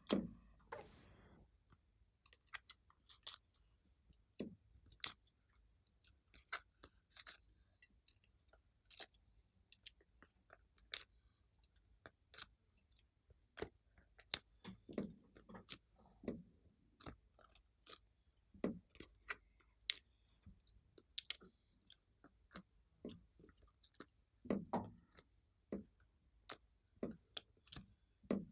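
Clear slime being squished and kneaded by hand, making irregular clicks and small pops.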